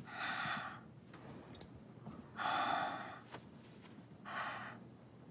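A person breathing audibly three times, sigh-like breaths about half a second each, spaced about two seconds apart.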